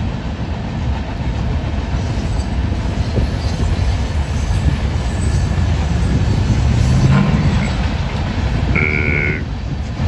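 Freight train rolling past, a steady low rumble of its cars on the rails that swells a little in the middle. A short high tone sounds near the end.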